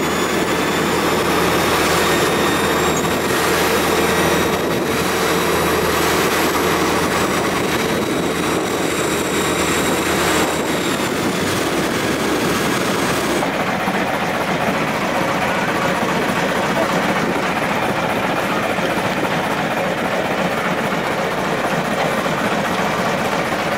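Engine of a Thai long-tail canal boat running steadily under way, a loud drone with a high whine. About halfway through the whine fades out and the sound settles into a duller, steady rush.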